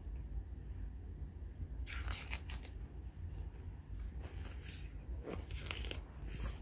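Pages of a picture book being turned by hand, the paper rustling and crinkling about two seconds in and again from about four seconds to near the end.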